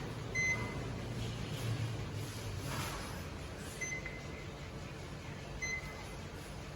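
Key-press beeps from an Elucky embroidery machine's Typhoo control panel: three short beeps a few seconds apart, over a steady low hum.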